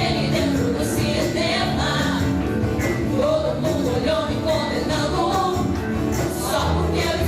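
A band playing a rock-style song with a singer, bass notes steady underneath.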